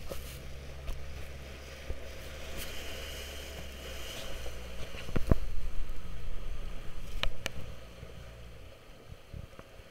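Wind and water splashing around a small boat over the steady low hum of a running motor, which drops away near the end. The splashing is loudest in the middle, with a couple of sharp knocks about five and seven seconds in.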